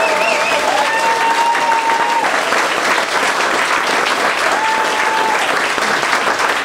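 Audience applauding steadily, with a few long drawn-out calls from the crowd in the first two seconds and again around five seconds in.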